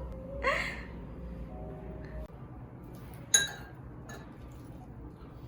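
A single sharp clink of glass or tableware against a hard surface about three seconds in, ringing briefly. A short rising sound comes about half a second in, over a low steady hum that stops midway.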